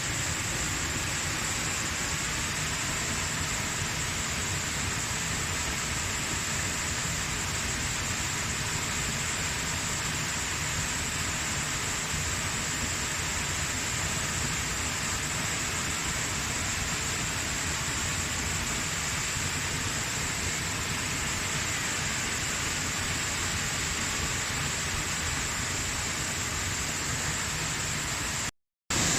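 Waterfall with a steady, even rush of falling water. It breaks off for a moment near the end and comes back slightly louder.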